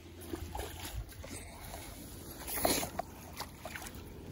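Wind rumbling on the microphone, with rustling and light clicks as a fly rod and landing net are handled. A louder, brief rustle comes about two and a half seconds in.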